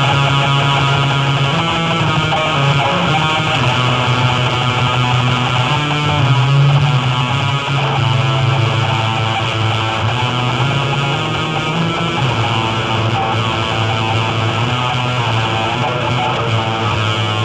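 Live noise music: a loud, dense, unbroken wall of distorted sound with sustained droning tones and a heavy low drone.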